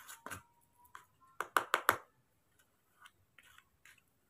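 Metal spoon clicking against a bowl of porridge as it is scooped, with a quick run of four sharp clicks about a second and a half in and a few fainter ticks later.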